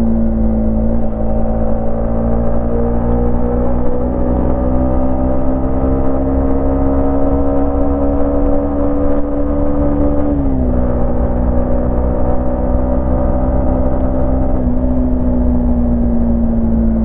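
Yamaha MT-15's 155 cc single-cylinder four-stroke engine running under way, its note climbing slowly for about ten seconds, then dropping sharply and holding steady before easing down a little near the end. A steady low rumble runs underneath.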